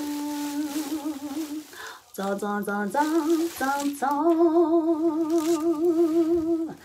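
A woman singing a wordless tune. One held note is followed by a short pause about two seconds in, then a few quick notes and a long wavering note that cuts off just before the end.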